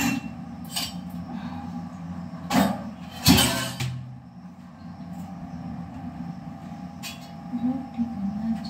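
Kitchen utensils being handled: a few sharp knocks and clinks, the loudest about three seconds in, over a steady low background hum.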